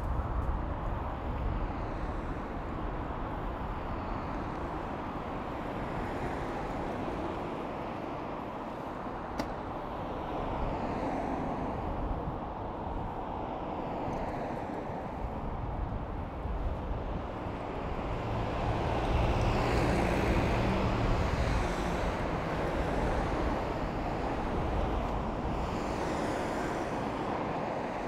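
City street traffic heard from a moving bicycle: a steady rush of road noise with cars passing by, and one louder vehicle with a low engine hum passing about two-thirds of the way through.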